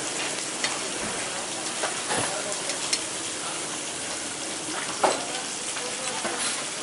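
Beef sizzling on a hot flat-top griddle, a steady frying hiss, with a few sharp metal clicks from tongs and a steel tray, the loudest about five seconds in.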